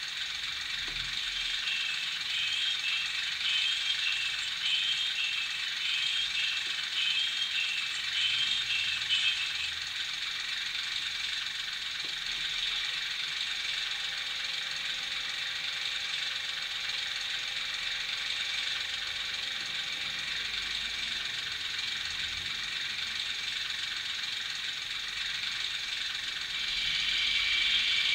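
Sampled diesel-shunter sounds from a Loksound 5 DCC sound decoder in a model Sentinel, played through its small speaker: a steady idle with a rattle in the first ten seconds. About halfway through, the cooling-fan effect comes in as a faint steady hum, and near the end the sander effect starts as a louder hiss.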